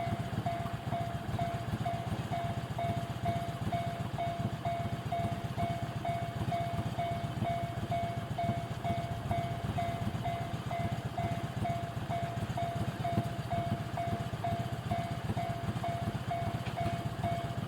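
Japanese railway level-crossing warning bell ringing steadily, an electronic ding repeating about twice a second, over a low steady rumble.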